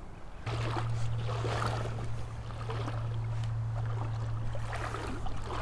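Creek water running and lapping, with a steady low hum underneath that starts about half a second in.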